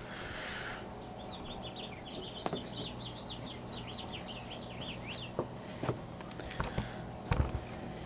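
A small bird twittering outdoors in a quick run of chirps for about four seconds, over the steady low hum of a running microwave oven. A few short knocks come near the end.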